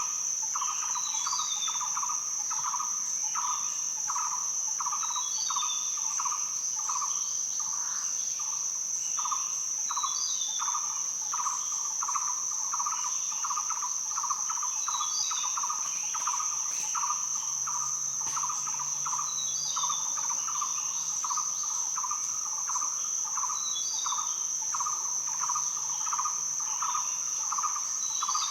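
Rainforest ambience: a steady, high-pitched cicada-like insect drone over a rhythmic pulsing chirp of insects. A short bird call comes back every four to five seconds.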